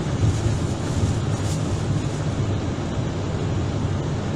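Cabin noise of an Airbus airliner taxiing: a steady low rumble from the idling engines and the rolling aircraft, with an even hiss above it.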